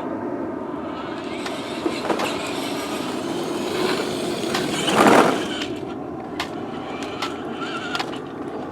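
Plastic wheels of a child's battery-powered ride-on toy car rolling and grinding over the ground, with scattered clicks and a louder burst of scraping about five seconds in.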